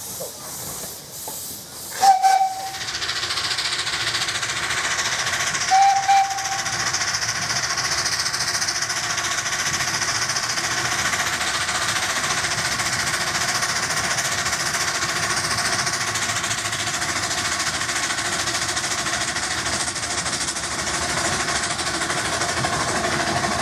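Miniature steam locomotive's whistle giving two short toots about four seconds apart, followed by a steady hiss of steam.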